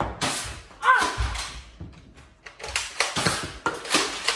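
Toy foam-dart blasters being primed and fired, with darts smacking onto surfaces: a sharp knock at the start, then a quick run of clicks and knocks from the second half on, several a second. A short shout comes about a second in.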